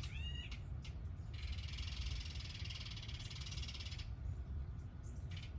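A short arched whistled bird call, then a dry, buzzy rattling chatter lasting nearly three seconds, over a steady low background rumble.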